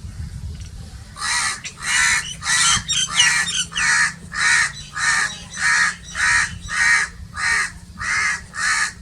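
A crow cawing over and over: a steady run of about fourteen short, harsh caws, a little under two a second, starting about a second in.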